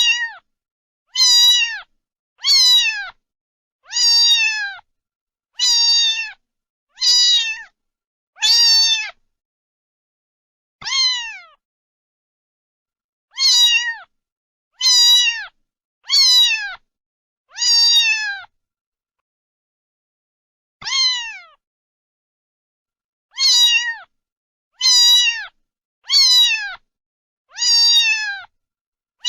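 A cat meowing over and over: about seventeen short, high-pitched meows, each falling in pitch, coming roughly every second and a half with two longer pauses.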